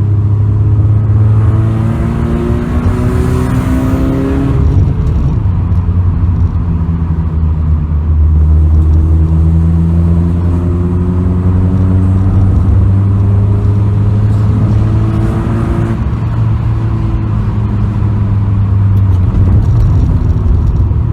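Honda Civic 1.8 VTEC four-cylinder engine accelerating through the gears, heard from inside the car with the window open. The revs climb steadily and drop back sharply at upshifts about 5 and 16 seconds in.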